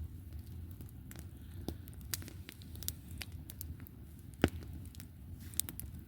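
Campfire crackling: irregular sharp pops and snaps over a low, steady rumble, with one louder pop about four and a half seconds in.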